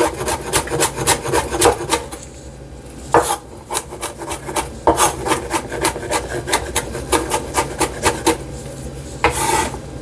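Knife chopping quickly on a cutting board, several sharp strokes a second with a couple of short pauses, dicing pepper.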